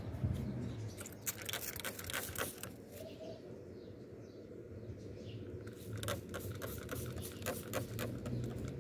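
Handheld spray bottle squirting in quick runs of short sprays, one cluster about a second in and another from about six to eight seconds.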